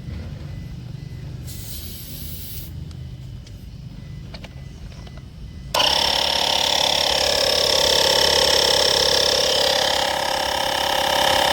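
12 V combination car vacuum cleaner and air compressor pump switching on suddenly about six seconds in and running steadily with a loud whine, after a low background rumble.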